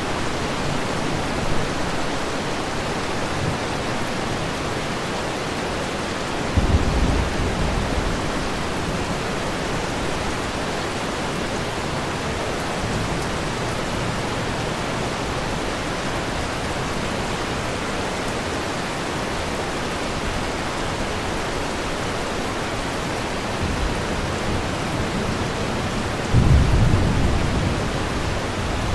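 Steady heavy rain falling, with thunder rumbling low twice: once about seven seconds in and again near the end.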